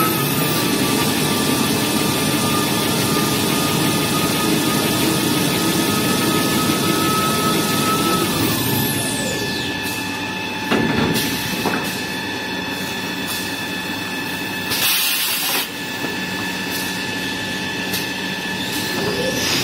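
Toilet-paper rewinding machine running through its winding cycle: its drive whine climbs at the start, holds steady for about eight seconds while a log winds, then falls away. About a second after the whine dies there is a knock, and a short burst of hiss comes a few seconds later. The whine climbs again as the next log starts near the end.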